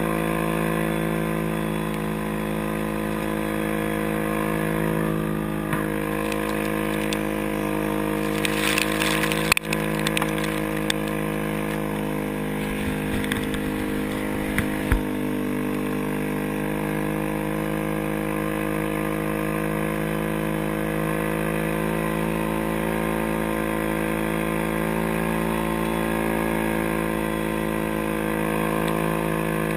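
A snow-tracked ATV's engine running at a steady speed while riding. About ten seconds in there is a single sharp knock, with a few smaller clicks around it.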